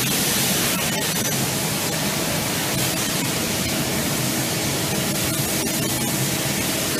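Automatic aluminium profile cutting saw running between cuts, not cutting: a steady whirring hiss with a low hum and a few faint clicks.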